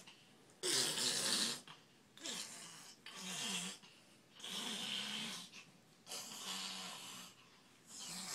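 Heavy, snore-like breaths in a steady rhythm, about one every one and a half seconds, each about a second long.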